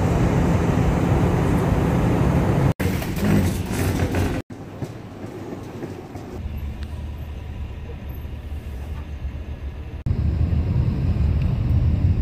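Short clips of travel ambience cut together. First comes a jet airliner's cabin noise, a loud steady rush and hum. After a couple of abrupt cuts there is a quieter stretch of city street noise, and about ten seconds in a loud low rumble of a moving vehicle takes over.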